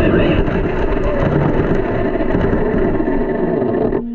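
Onboard sound of a Team Corally Kronos XP 1/8 brushless monster truck driving across grass: motor and drivetrain noise with the tyres rushing through the grass and wind on the microphone. The sound cuts off abruptly about four seconds in.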